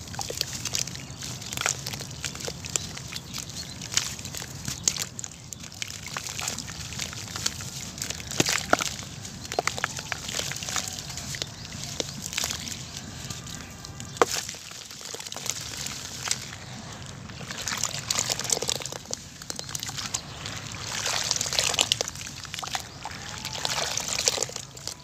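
Hands squeezing and crumbling wet sand-cement lumps in a basin of water: gritty crackles, drips and sloshing water. Near the end the hands knead the wet paste and the sloshing grows louder.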